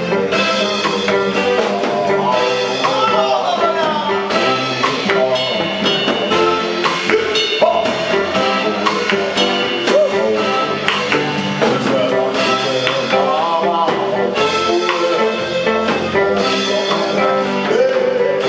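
Live band playing an African dance medley on electric guitar, drum kit and keyboard, with a voice singing in places.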